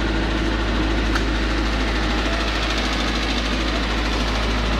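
A 50 kVA diesel generator set in a soundproof canopy running at a steady speed, a constant low hum with engine noise over it.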